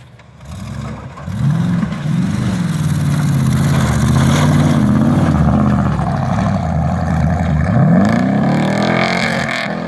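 Truck engine revving and accelerating hard, loud from about a second in, its pitch swinging up and down repeatedly with a steep rise near the end.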